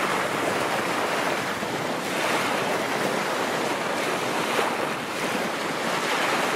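Choppy bay water splashing and washing in the wind: a steady rushing noise with small splashes now and then.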